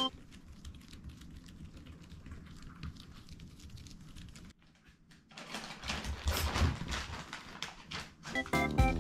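Faint room sound with small ticks and taps, then, just over halfway in, a few seconds of close rustling and scuffing as a Chihuahua brushes against the floor-level camera and its microphone. The scuffing is loudest about two-thirds of the way through.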